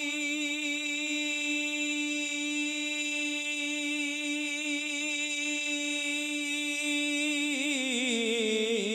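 A man singing a Punjabi naat unaccompanied through a microphone and PA, holding one long steady note for about seven seconds, then breaking into a wavering ornamental run that slides down near the end.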